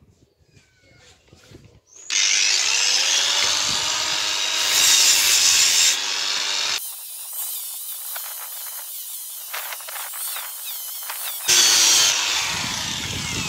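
Angle grinder grinding excess flux-core weld bead off a steel gas pedal. The grinding starts about two seconds in, with the pitch shifting as the disc bites. It thins out in the middle and comes back loud near the end.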